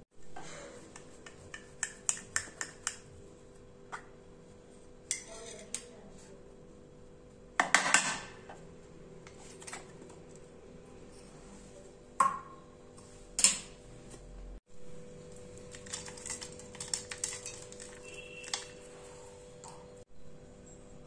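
An aluminium kulfi mould clinking and knocking against a black serving dish while the kulfi is unmoulded, in scattered clicks and taps with two louder knocks about eight and thirteen seconds in. A run of small light ticks follows near the end.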